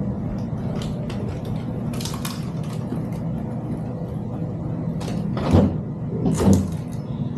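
Styrofoam and cardboard packing being pulled off and handled: a few short scraping rustles, the loudest two near the end, over a steady low hum.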